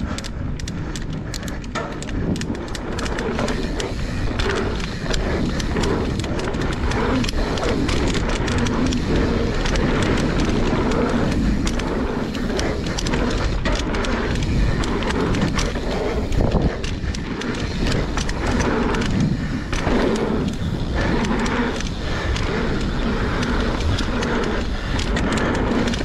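Mountain bike rolling fast down a dirt trail: tyres on packed dirt with a constant low rumble, and frequent knocks and rattles from the bike as it rides over bumps and roots.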